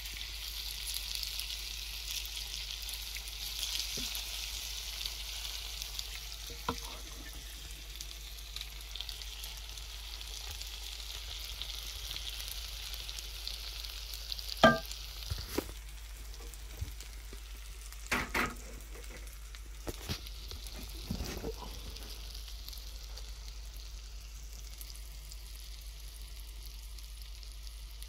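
Carbonara sauce and pasta sizzling steadily on a hot cast-iron plate, strongest in the first few seconds. A few sharp clicks and knocks break in, the loudest about halfway through.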